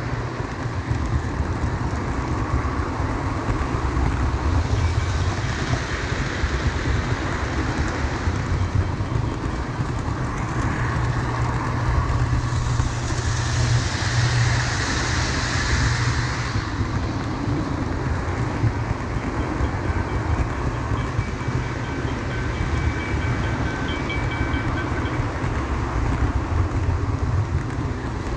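O gauge model train running along its track, heard from a camera riding on one of its cars: a steady rumble and clatter of the wheels on the rails. A brighter hiss swells for a few seconds midway, while the car runs through a tunnel.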